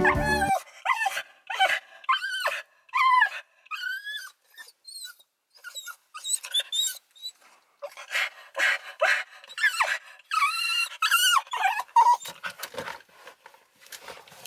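A brown cockapoo whining and yelping in a long run of short, high-pitched calls that rise and fall in pitch, coming in quick bunches with brief gaps between.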